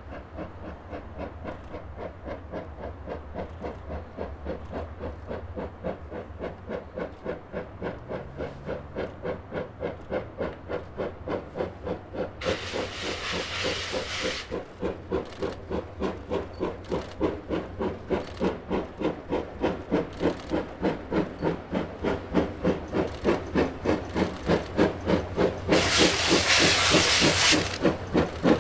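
C11-class steam tank locomotive No. 207 working up a gentle grade, its exhaust chuffing in a steady beat that grows louder as it approaches. Twice, about halfway through and again near the end, it blows off its cylinder drain cocks with a loud hiss of steam.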